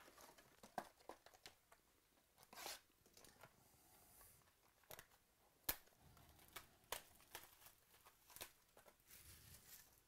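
Baseball card packs being pulled from their cardboard box and torn open: faint tearing and crinkling of the pack wrappers, with scattered sharp clicks and snaps.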